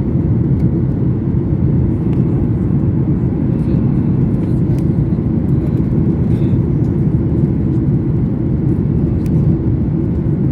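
Steady low rumble of a Boeing 737 jet airliner heard from inside the cabin: engine and airflow noise holding an even level, with a few faint clicks.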